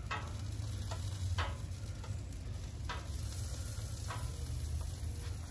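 Food sizzling on a Blackstone propane flat-top griddle, with a few sharp clinks of a metal utensil against the cooktop as the cooked sausages are taken off.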